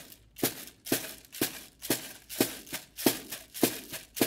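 A hand rattle shaken in a steady beat, about two sharp shakes a second, each with a short rustling tail, keeping time for a traditional song.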